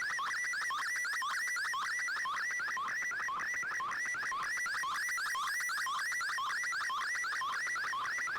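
Slow-scan TV (SSTV) image signal from a shortwave receiver's audio: a fast, regular warble of rising tone sweeps between low and high pitch, several a second, one per scan line of the picture being sent.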